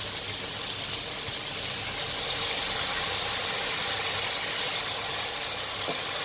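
Fish and tofu frying in a pan over a high gas flame, a steady sizzling hiss that swells about two seconds in, just after soy sauce has gone in.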